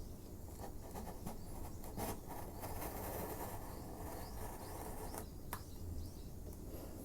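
A freshly honed chisel paring a thin slice off the end grain of a wood block: a few small ticks, then an even scraping hiss for about three seconds as the edge shears through the fibres, ending in a sharp tick.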